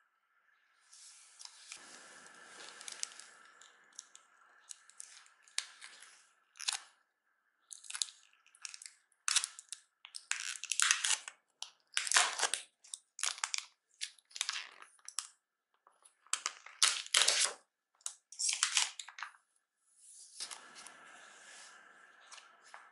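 Thin protective plastic film being peeled off the back of a smartphone, crackling and crinkling in a string of short, irregular bursts.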